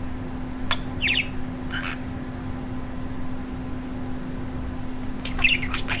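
Budgerigar giving a few short, sharp chirps about a second in, then a quick run of chattering calls near the end, over a steady low hum.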